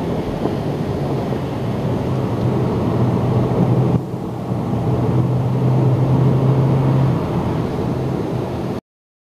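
Car engine and tyre noise heard from inside the cabin while lapping at speed, a steady drone. The level drops suddenly about four seconds in and builds again, then the sound cuts off abruptly near the end.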